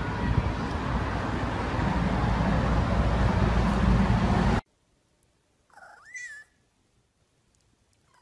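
A steady rushing noise cuts off suddenly about four and a half seconds in. About a second later a domestic tabby cat meows once, rising and then falling in pitch. A faint second call begins near the end.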